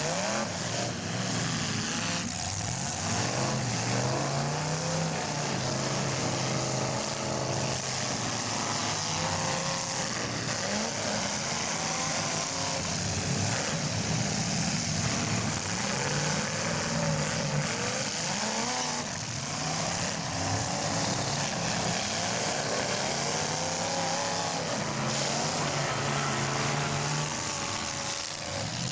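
Engines of several full-size demolition derby cars revving up and down over a constant rush of noise.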